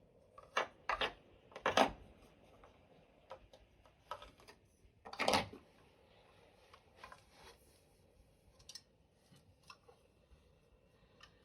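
Scattered light clicks and short scrapes of hand tools working on drywall, with a few sharper scrapes in the first two seconds and a longer one a little past five seconds in, as the opening for an outlet box is started.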